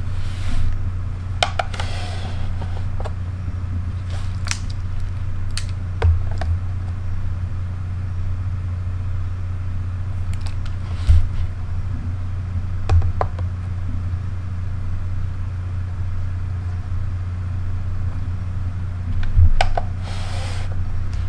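Compact cameras being handled and set down on a digital kitchen scale: scattered light clicks and knocks, a few soft thumps and brief rustles, over a steady low hum.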